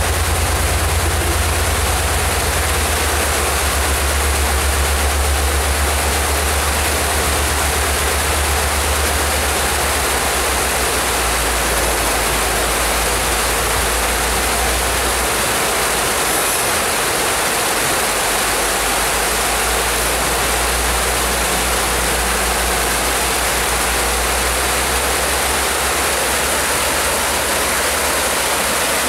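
Creek rapids rushing steadily under the low rumble of covered hopper cars rolling across a wooden trestle. The rumble weakens after about ten seconds and dies away as the end of the train clears the bridge.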